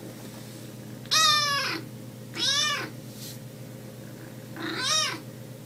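A grey kitten meowing three times, each short meow rising and then falling in pitch, spaced roughly a second and a half apart.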